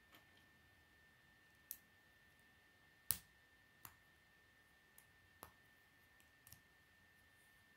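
Plastic K'nex rods and connectors clicking as they are snapped together and handled: about six sharp, separate clicks, the loudest about three seconds in.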